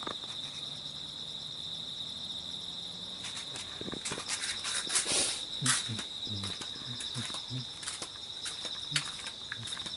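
Insects chirring steadily in a high, unbroken band. From about three seconds in come irregular clicks and knocks, with a louder rush of noise around the middle.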